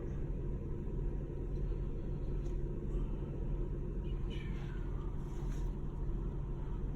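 Car engine idling: a steady low rumble heard from inside the stopped car.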